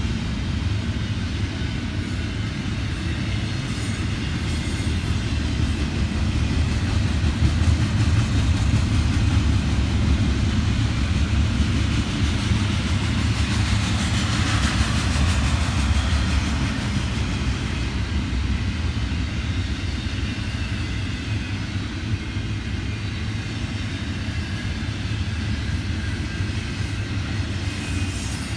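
Long freight train of container cars rolling past: a steady low rumble of wheels on the rails, with a hiss that swells about halfway through.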